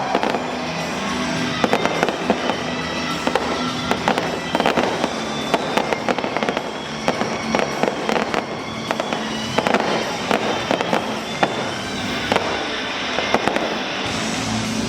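Fireworks going off in quick succession, a continuous run of bangs and crackles, with music playing underneath.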